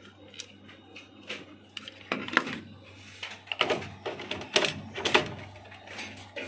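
Irregular plastic clicks and knocks as an Epson EB-425W projector's lamp module is handled and pressed into its lamp bay, the loudest about two and a half and five seconds in, over a steady low hum.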